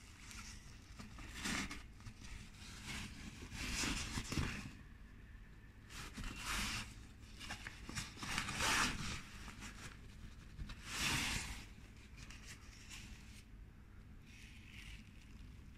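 500D Cordura nylon backpack being handled and opened up: the fabric rustles and scrapes in a string of short spells, each up to about a second long.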